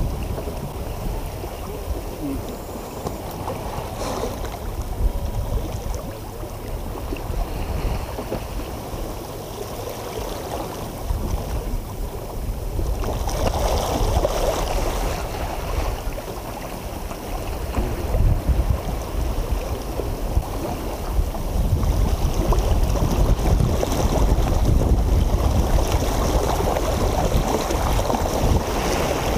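Wind buffeting the microphone on a small sailboat, with water rushing and splashing along the hull; the rush swells a little past the middle and again over the last several seconds.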